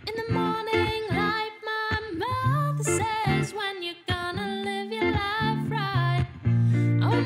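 A woman singing a pop song live into a microphone, with guitar accompaniment.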